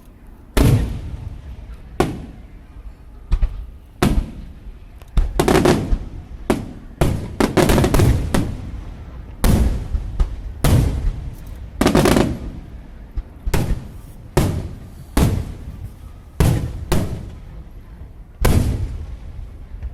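Aerial firework shells bursting overhead in an irregular barrage: some two dozen sharp bangs, each trailing off in a low rumble, coming thickest from about a quarter to nearly halfway through.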